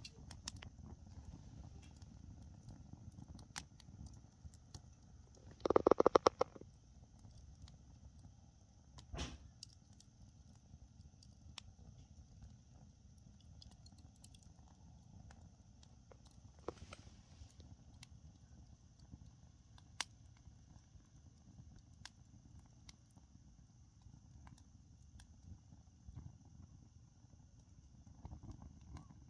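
Oak logs burning in a campfire: a low rumble with scattered crackles and pops, and a brief loud rattling burst of pops about six seconds in.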